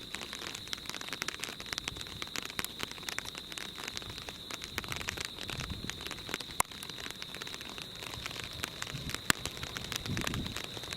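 Rain pattering on a surface: dense, irregular ticks, with a steady high-pitched tone over them. Two louder clicks stand out in the second half, and a brief low rumble comes near the end.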